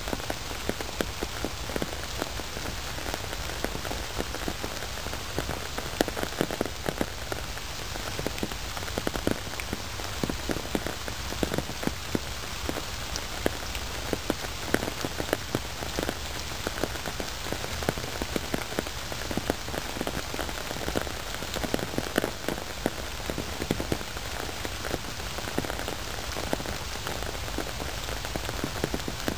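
Steady rain falling: a constant hiss with many separate, irregular drop hits throughout.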